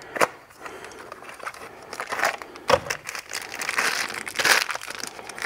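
A cardboard box opened and a clear plastic bag crinkling as a pair of safety wire pliers is unpacked by hand, with a few sharp handling clicks.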